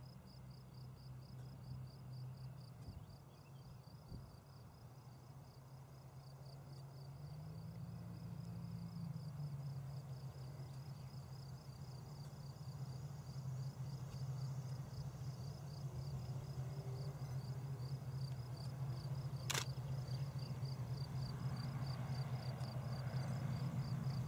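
Light twin piston-engine propeller aircraft taxiing at low power: a steady low engine drone that grows louder as it comes closer, rising briefly in pitch about eight seconds in. A cricket chirps steadily in rapid pulses, and a single sharp click sounds near the end.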